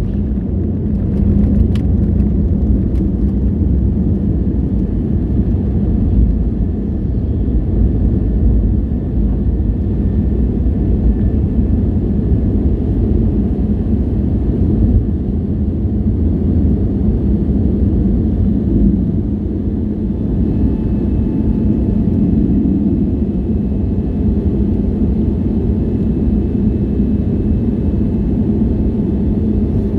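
Airbus A320neo's engines and airflow heard inside the passenger cabin as a loud, steady low rumble, with faint steady tones above it.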